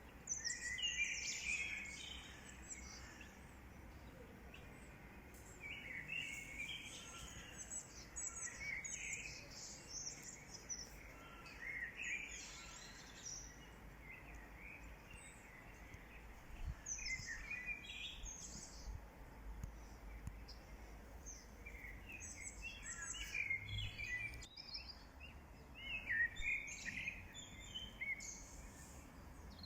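Small birds chirping and twittering in short clusters on and off, over a steady low rumble.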